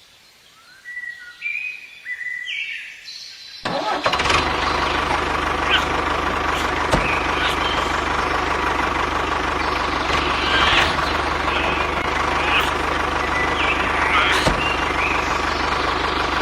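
A small motor starts about four seconds in and then runs steadily, with occasional light clicks.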